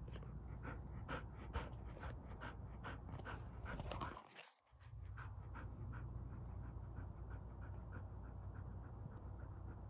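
Curly-coated dog panting with its mouth open in quick, even breaths, about three a second at first and quicker after a brief break near the middle.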